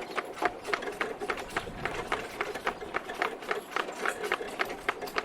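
Horse hooves clip-clopping at a fast, even pace, about six hoofbeats a second.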